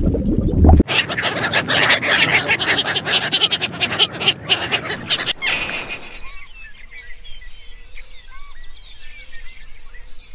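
A dense crackling of rapid clicks for the first five seconds or so, then many small birds chirping and trilling in quick, overlapping calls.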